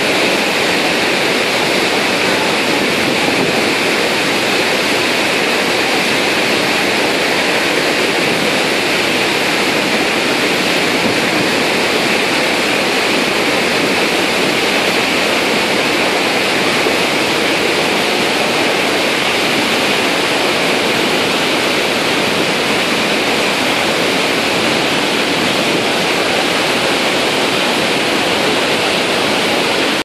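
Steady, loud rush of falling water from the Iguazu Falls cascades and the white-water river churning below them.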